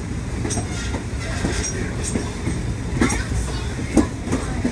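Train rolling along the track: a steady low rumble, with sharp clicks of the wheels over rail joints, the loudest about three and four seconds in.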